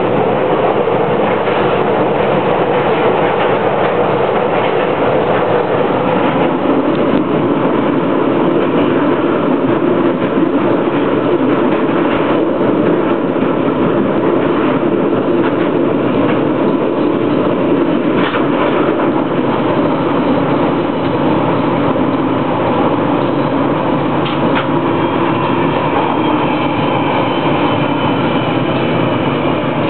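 London Underground Northern Line tube train running through a deep-level tunnel, heard from the driver's cab: a loud, steady rumble with occasional clicks from the wheels on the track. Near the end a few thin high tones come in as the train runs into the station.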